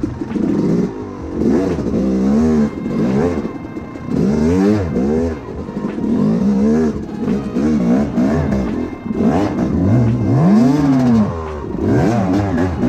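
2007 Yamaha YZ250 two-stroke single-cylinder dirt bike engine revving up and down in repeated short throttle bursts, about one a second, as the bike is ridden slowly over rough rocky trail.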